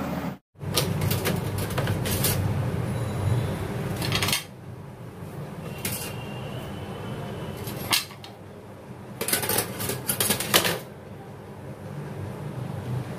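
Clicks, knocks and rattling clatter from handling a Philips two-slot electric toaster and its wire warming rack, with a dense run of clatter about two-thirds through, over a low steady hum.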